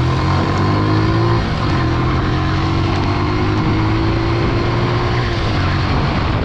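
Bajaj Boxer CT 100's single-cylinder four-stroke engine running under way, its pitch creeping up over the first second, holding steady, then easing down about five seconds in, over a steady rush of wind and road noise.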